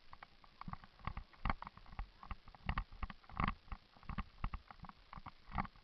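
Irregular knocks and thumps, a few a second, with louder ones near the middle and near the end.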